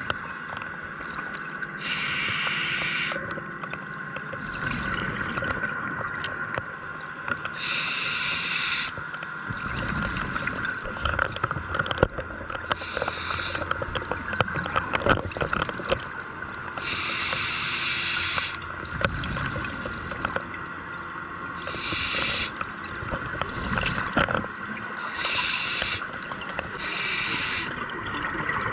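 Scuba diver breathing through a regulator underwater. A rush of exhaled bubbles comes about seven times, every three to five seconds, over a steady high hum.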